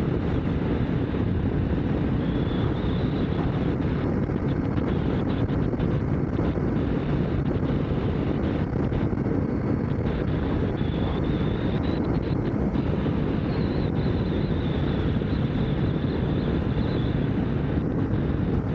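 Motorcycle riding at a steady road speed: constant wind rush over a helmet-mounted microphone mixed with engine and road noise, with no change in pace.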